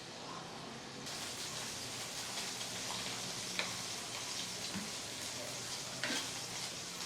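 Food frying in hot oil in a pan: a steady sizzle that grows stronger about a second in, with scattered pops and crackles.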